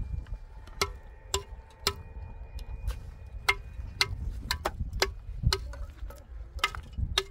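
Irregular sharp clicks and taps, about one or two a second, each with a short ring, over a steady low rumble.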